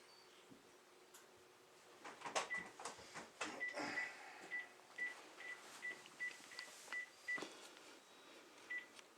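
About a dozen short electronic beeps, all at one pitch and unevenly spaced, mixed with a clatter of knocks and clicks in the first half and a single knock near the end.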